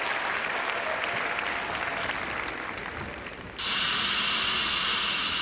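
Audience applauding and dying away, then about three and a half seconds in a loud, steady hiss cuts in abruptly.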